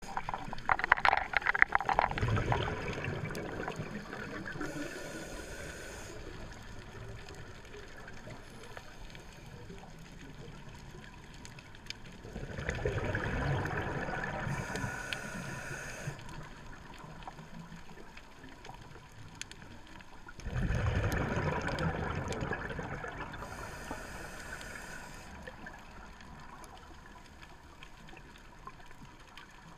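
Underwater sound of a scuba diver's exhaled breath bubbling out of the regulator: three rumbling, gurgling bursts a few seconds long, each fading away, with a quiet watery background between them.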